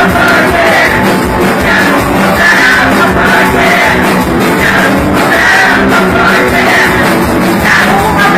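Punk rock band playing loud, with singing over the instruments.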